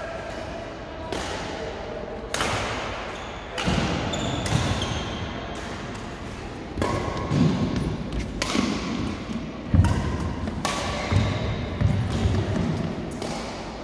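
Badminton rackets striking the shuttlecock in a fast doubles rally, a sharp hit about every second, mixed with players' footfalls on the court floor.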